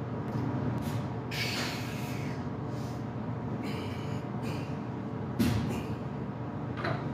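A weightlifter breathing forcefully while setting up over a loaded deadlift barbell: a long hissing exhale and short sharp breaths. There is one sharp knock about five seconds in, all over a steady low hum.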